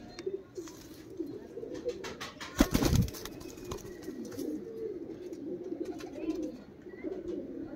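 Domestic pigeons cooing steadily in a loft, with a short loud flurry of wing flapping about two and a half seconds in.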